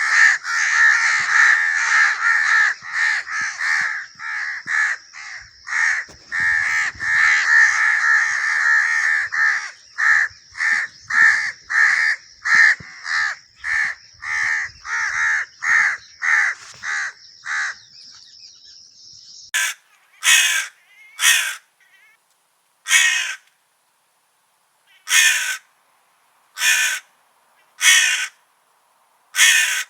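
A flock of crows cawing in fast, overlapping calls, with a steady high tone running under them. About two-thirds of the way in the track cuts to single loud caws spaced a second or two apart.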